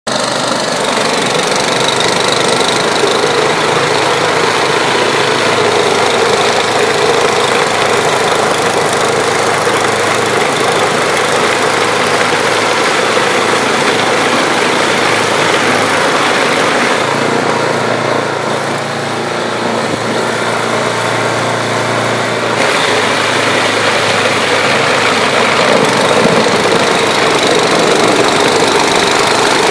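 John Deere two-stage snowblower's engine running steadily under load as its auger churns through heavy, wet slush. The sound thins briefly a little past halfway, then picks back up.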